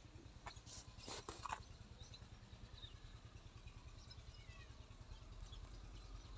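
MTZ-50 tractor's four-cylinder diesel engine idling, a faint, steady low pulsing throb, with a few sharp clicks about a second in.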